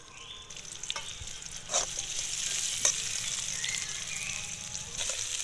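Sliced onions sizzling in hot oil in a metal kadai, just added to a cumin and dried-chilli tempering. A metal spatula knocks and scrapes against the pan a few times, and the sizzle grows louder about two seconds in.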